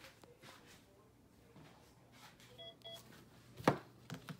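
Two short electronic beeps, one right after the other about two and a half seconds in, then a sharp click, the loudest sound, followed by a couple of fainter knocks.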